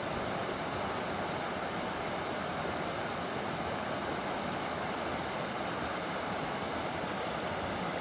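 Steady rush of a shallow river running over rocks, an even noise that does not change.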